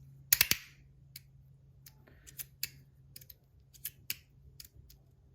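Sharp metallic clicks from a stainless-steel Rapt fidget being handled and worked: a quick burst of three loud clicks near the start, then fainter, irregular clicks scattered through the rest.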